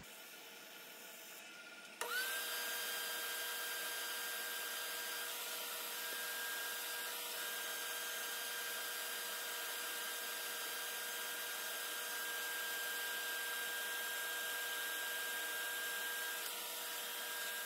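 Wood lathe running at steady speed, its motor giving a high, even whine, while sandpaper held against the spinning red cedar vase adds a soft rubbing hiss. The sound steps up suddenly about two seconds in and then holds steady.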